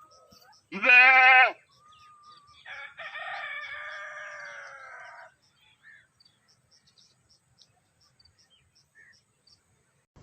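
A goat bleats once, short and quavering, about a second in; then a rooster crows, fainter and longer, for about two and a half seconds.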